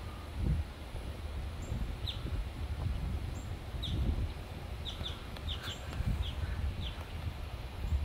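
Birds chirping: short, high, downward chirps every second or so, with a quick run of them around the middle. Under them runs a low rumble of wind on the microphone.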